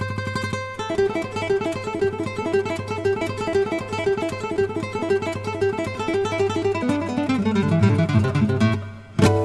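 Background music: an acoustic guitar picking a quick, even run of notes, with a sharp strum near the end.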